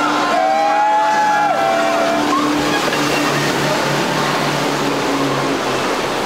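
Twin Yamaha 150 hp outboard motors running at speed, with a steady engine hum over the rush of spray and wake; the hum fades about five and a half seconds in while the water rush goes on. A long whoop rises and falls over it in the first two seconds or so.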